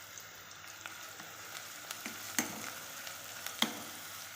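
Chopped onions sizzling in ghee in a pan as they are sautéed to brown, with a steady hiss. A utensil stirring them knocks sharply against the pan twice, in the second half.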